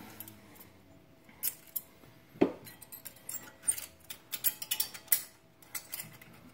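Light metallic clicks and clinks of brake pad shims and pads being handled and fitted, with one sharper click about two and a half seconds in and a quick run of clicks toward the end.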